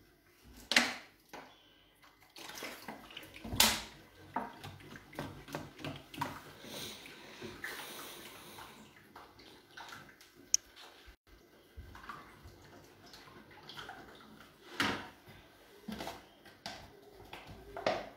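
Flour-and-water batter being mixed in a ceramic bowl: wet sloshing and squelching with scattered knocks against the bowl, a few of them sharper and louder.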